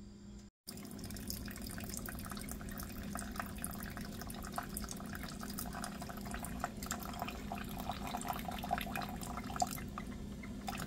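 Coffee maker dispensing a thin stream of coffee into a mug, a steady trickle and splash of liquid with a faint hum, starting about half a second in.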